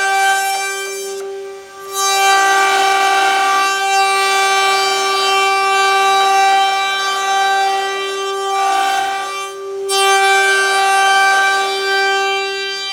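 Six-spindle CNC carving router running, its high-speed spindles giving a steady high whine with the hiss of cutting over it; the cutting noise eases off twice and comes back as the tools lift and re-engage.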